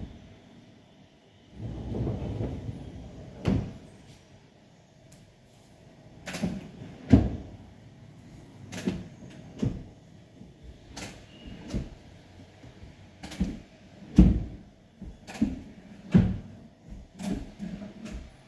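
The metal pull-out bed mechanism of a sofa cum bed sliding shut with a short rumble, then a string of sharp clicks and knocks, roughly one a second, as the sofa's adjustable headrests are folded and set.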